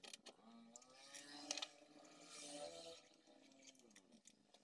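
Faint scraping and rubbing on the glass of a bare LCD panel as leftover polarizer glue and mold are cleaned off with a small blade. There are a few short strokes, the loudest about a second and a half in, with some clicks near the start.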